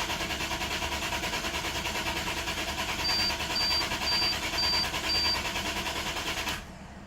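2001 Lexus IS300's 3.0-litre 2JZ-GE inline-six cranking on the starter with a steady rhythmic chug, turning over without firing; the cranking stops about six and a half seconds in. It is a crank-no-start that the owner suspects is an ETCS (electronic throttle control) failure or a bad throttle body. Midway, five short high beeps sound about half a second apart.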